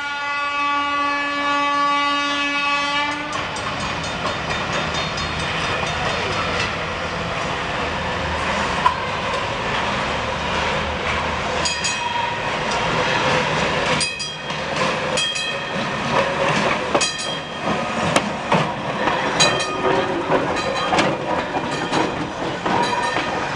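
New Orleans Public Service streetcar 832 approaching around a curve and rolling close past, its wheels clicking over rail joints with brief high squeals over a steady rumble. A steady horn-like tone sounds for about three seconds at the start.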